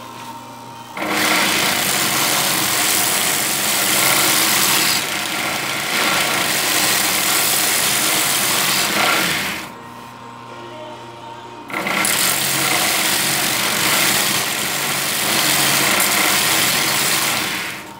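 Homemade belt sander, driven by a sewing-machine motor, grinding a knife blade: two long passes of loud abrasive grinding, about eight and six seconds long, with the belt and motor running quietly in the gap between them and after.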